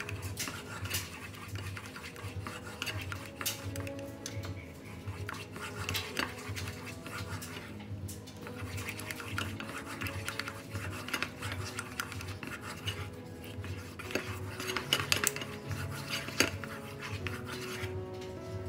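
A wooden spoon stirs a thick, cooking flour paste in a metal saucepan, with irregular scrapes and knocks of the spoon against the pan. A few sharper knocks come near the end.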